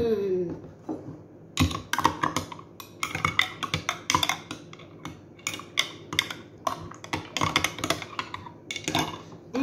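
Metal spoon stirring milk tea in a glass mason-jar mug, clinking against the glass in quick irregular taps, a few a second, starting about one and a half seconds in.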